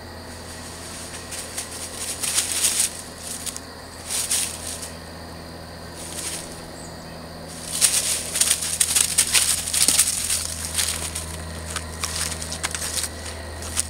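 Dry fallen leaves crunching and rustling in short bursts under running Deerhound puppies at play, busiest in the second half, over a steady low hum.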